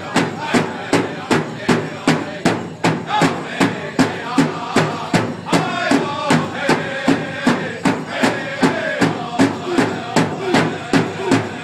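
Powwow drum group beating a large drum in a steady pulse of about three strikes a second, with the singers' voices over it, strongest in the middle of the passage.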